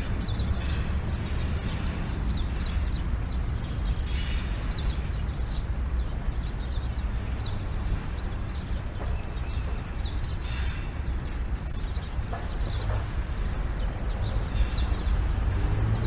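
Street ambience: a steady low rumble of traffic, with small birds chirping in short high notes scattered throughout.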